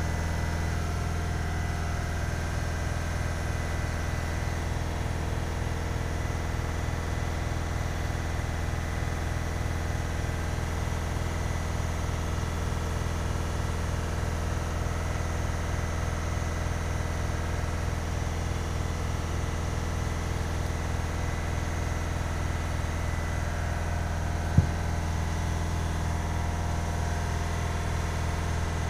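Steady low hum of a running motor or machine, even and unchanging throughout, with a single sharp click late on.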